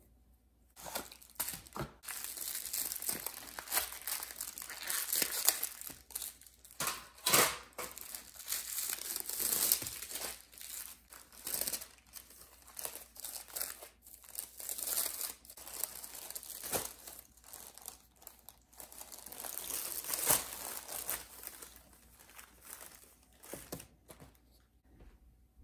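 Crinkling and rustling of a roll of filo pastry sheets and their wrapping as it is unwrapped and unrolled by hand onto a cloth: an irregular run of papery crackles with sharper crinkles, starting just under a second in and thinning out near the end.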